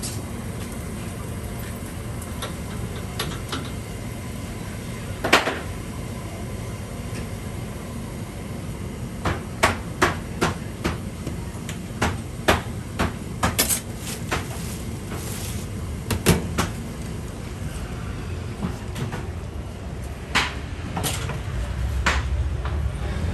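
A series of sharp knocks and clacks at uneven intervals, one loud knock about five seconds in and a quick run of them in the middle, over a steady background noise.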